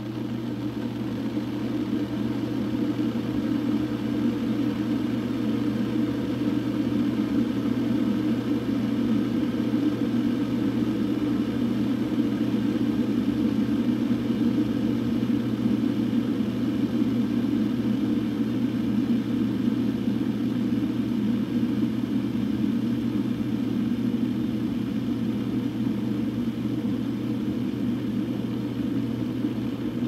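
Hamilton Beach 40880 stainless-steel electric kettle heating water: a steady rumble that grows louder over the first several seconds and then holds, with a low steady hum underneath.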